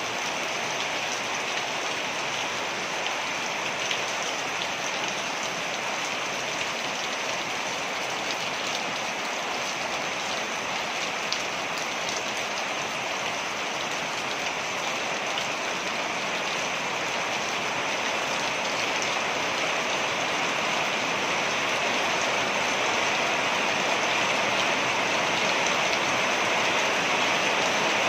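Waterfall: a steady rush of falling water, growing slightly louder in the last third.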